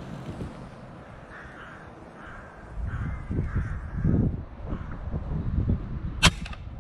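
Rooks cawing a few times while wind buffets the microphone, then a single sharp crack of an airgun shot about six seconds in, the shot that drops a wood pigeon.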